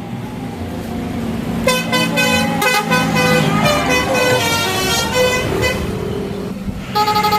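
Odong-odong tourist train running, then its multi-tone 'telolet' horn playing a tune of changing notes for several seconds. Near the end a loud, steady horn chord starts, pulsing rapidly.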